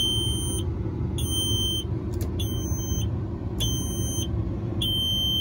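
Cab warning buzzer in a Peterbilt 379 dash beeping steadily: about five short high beeps, a little over one a second. A steady low rumble runs underneath. The oil pressure gauge reads zero, which is typical of the ignition on with the engine not running.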